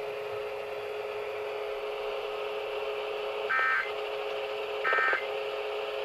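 Reecom NOAA weather radio sending the Emergency Alert System end-of-message data bursts: short, identical, buzzy digital chirps, two of them about a second and a half apart starting about three and a half seconds in, over a steady low hum. They mark the end of the AMBER alert broadcast.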